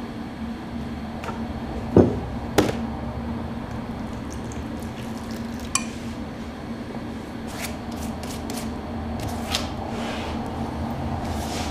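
Glass bottles and jars being handled and set down on a wooden work table: two sharp knocks about two seconds in, then scattered lighter clinks and taps, over a steady low hum.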